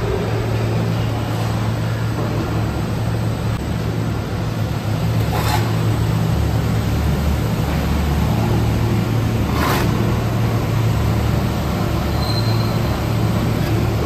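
Steady low hum and rumble of a rotary drum carbonization furnace's machinery running during LPG preheating. Brief sharp scrapes about five and ten seconds in, as a shovel loads sawdust into the steel feed hopper of the screw conveyor.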